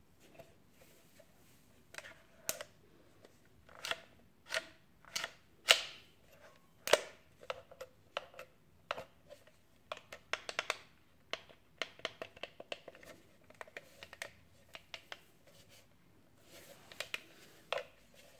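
Irregular plastic clicks and taps of a handheld drone transmitter being handled and turned over, its sticks and buttons worked by thumb. The clicks begin about two seconds in and are spaced unevenly.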